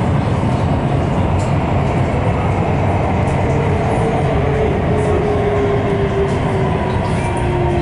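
Metro train running through a tunnel, heard from inside the car: a loud, steady rumble of wheels on rail. From about halfway in, a motor whine slowly falls in pitch as the train slows for the next station.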